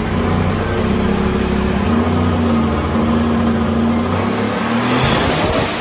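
Single-turbo HEMI V8 with a blow-through carburettor running a full-throttle boost pull on a hub dyno, with 35 psi set on the wastegates. The engine note holds loud and steady, then about five seconds in the throttle closes and the revs fall away, with a high whistle rising as it lets off.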